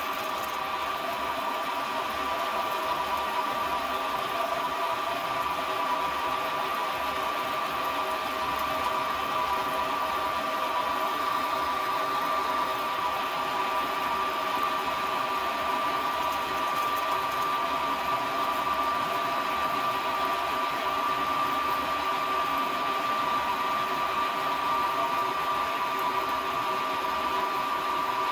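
Metal lathe running while its cutting tool turns down a step on a large steel disc: a steady whine over the hiss of the cut.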